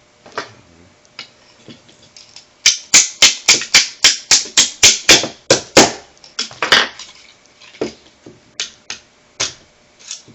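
Quick, sharp taps, about four a second for some three seconds, then a few scattered knocks and clicks: a small hammer tapping a punch to loosen the trigger pin in a Beretta PX4 pistol frame.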